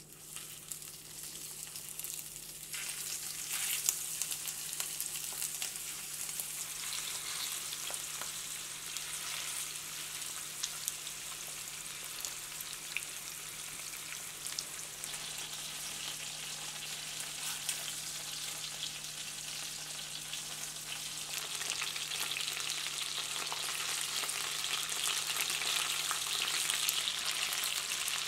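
Floured chicken thigh pieces shallow-frying in a frying pan of hot salad oil: a steady sizzle with scattered crackles and pops, louder near the end.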